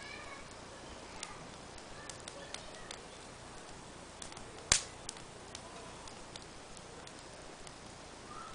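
Fire burning in a small mesh fire pit, with scattered crackling ticks and one loud sharp pop a little under five seconds in.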